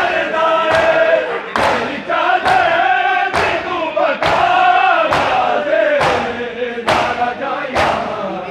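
A large crowd of men chants a noha together while beating their chests in unison during matam (seena zani). The joint chest strikes come as a sharp, regular slap a little more than once a second, under the massed chanting.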